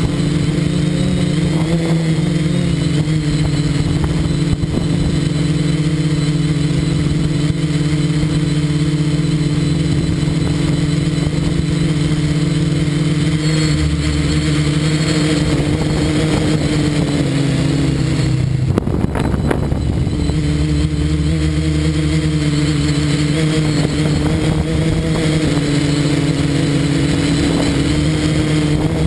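Quadcopter's electric motors and propellers buzzing steadily, heard from the camera on board, close to the motors. The buzz holds several steady tones whose pitch shifts a little with throttle, and a short rush of noise cuts across it a little before twenty seconds in.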